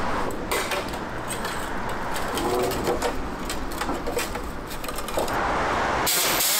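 Workshop clatter as a removed exhaust muffler is handled and set down on the floor, with faint voices. Near the end a loud, steady hiss of a pneumatic tool starts up.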